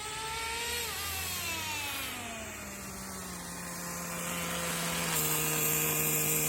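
Small nitro glow engine of a Tamiya TGM-03 Wild Commando RC car running: it revs up briefly, the pitch falls smoothly back to a steady idle, and about five seconds in the sound steps up slightly louder with more hiss while staying at a steady pitch.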